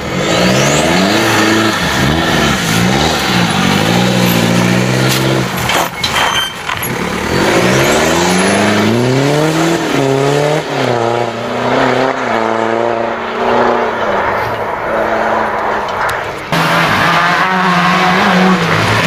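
Rally car engines revving hard and changing gear, pitch climbing and dropping again and again as the cars drive through a stage. The sound changes abruptly twice, from one car to another.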